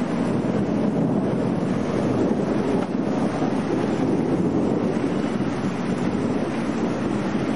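Storm wind rushing steadily and buffeting the microphone.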